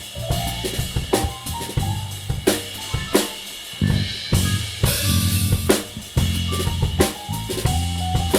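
Live band playing an instrumental passage: a drum kit with kick, snare and rimshot hits drives a steady beat over sustained low bass notes.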